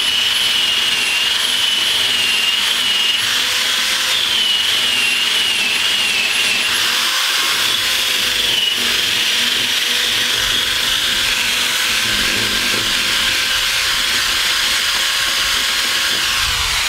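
Handheld power drill with a twist bit running steadily while boring through a wooden plank. It is working out the wood between two drilled holes to join them into a slot. The motor whine wavers a little in pitch as the bit is worked.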